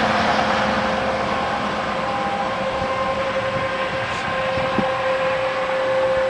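Outdoor tornado warning sirens sounding a steady, held tone in the distance, over a steady noisy hiss.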